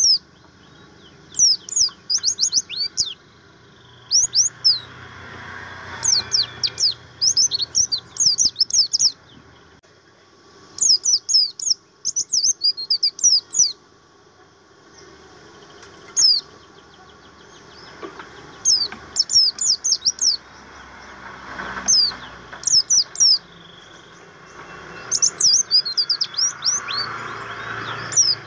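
Caged white-eye of the Buxton's type (pleci buxtoni) singing: clusters of rapid, thin, high chirps that drop in pitch, in phrases of one to two seconds, repeated with short pauses.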